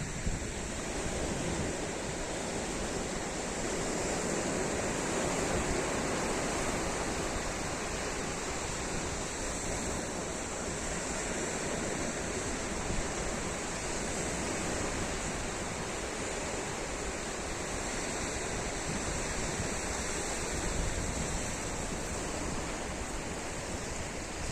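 Sea surf washing onto the beach in a steady rush, swelling gently a few seconds in and again near the end, with some wind noise on the microphone.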